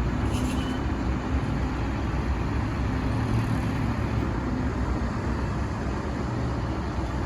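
Heavy road-paving machinery, an asphalt paver and a tipper truck, running with a steady low engine drone.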